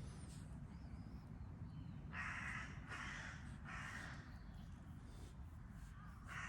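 A crow cawing three times in quick succession, harsh calls a little over half a second apart, over a steady low rumble.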